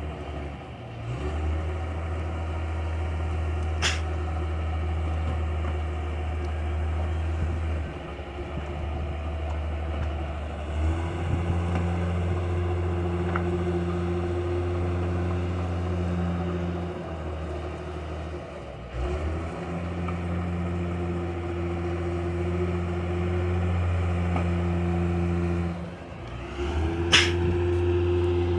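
Two-wheel hand tractor engine running steadily while plowing a muddy rice paddy, its sound dipping briefly several times. There is a sharp click a few seconds in and another near the end.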